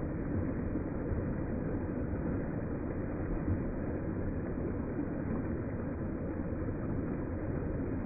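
Water of a small waterfall rushing and splashing over rocks into a pool, slowed down with the slow-motion footage into a deep, steady rumble.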